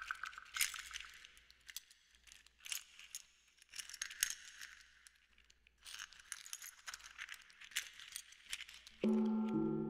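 Sparse percussion score: clusters of clattering rattles and small metallic jingles, then a struck gong or singing bowl near the end, ringing on with several steady tones.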